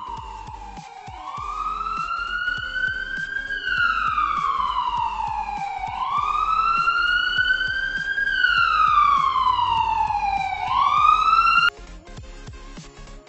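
Emergency-vehicle siren wailing in slow rising and falling sweeps, about two and a half cycles. It cuts off suddenly near the end.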